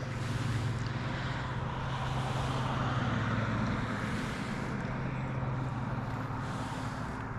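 A steady low motor hum, with a wash of noise that swells in the middle and then eases, like a vehicle passing.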